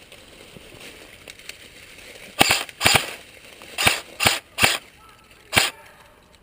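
Airsoft gun firing single shots: about eight sharp cracks, some in quick pairs, starting about two and a half seconds in and ending about a second before the end.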